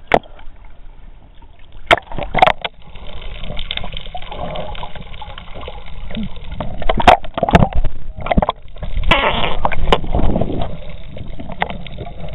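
Seawater sloshing and bubbling around a camera dipped under the surface, muffled, with many sharp knocks and bumps against the camera.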